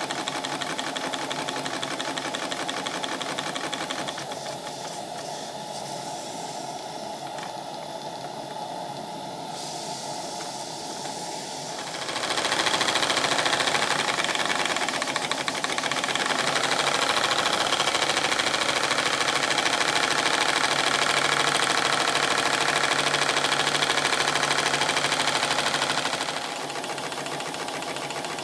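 Model steam engine running fast on live steam: a rapid, even mechanical clatter with steam hissing. The hiss swells much louder for a long stretch in the middle, then drops back near the end.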